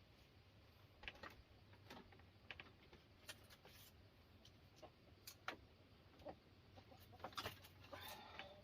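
Chickens clucking faintly, with scattered short clicks and taps.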